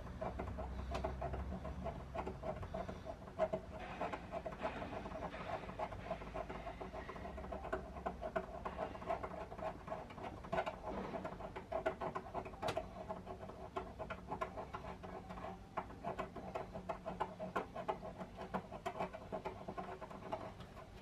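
Rapid, repeated scraping of paint off a painted steel body panel, many quick short strokes, to bare the metal for a good battery earth connection.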